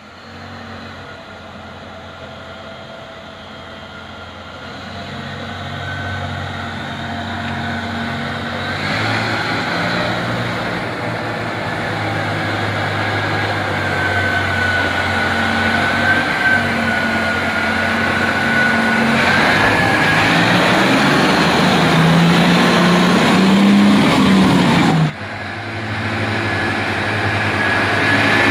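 Komatsu HD785 haul truck's V12 diesel engine running and growing steadily louder as the truck comes closer, with a high wavering whine above the deep engine note. Near the end the engine revs up, then the sound breaks off abruptly and resumes with another truck running close by.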